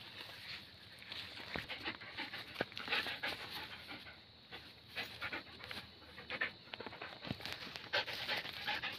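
German shepherd panting, a run of short breathy puffs.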